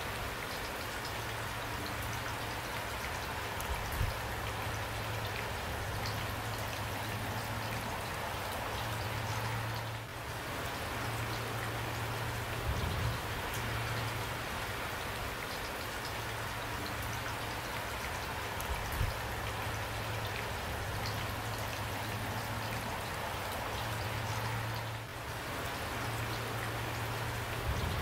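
Steady rain falling, a dense even patter, with a few louder single taps of drops landing close by.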